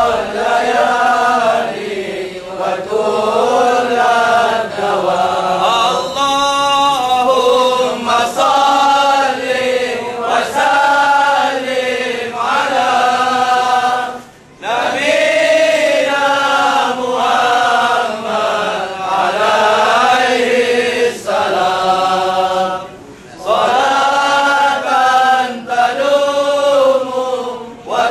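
Men's voices chanting a Sufi qasida of blessings on the Prophet in long, slow, drawn-out melodic phrases. The singing breaks off briefly twice, about halfway through and again near the two-thirds mark.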